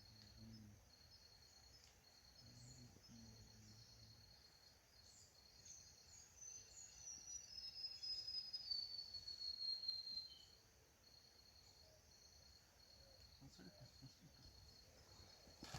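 Night insects trilling in a high, steady pulsing chorus. From about five to ten seconds in, a series of high whistled notes steps down in pitch, the loudest sound.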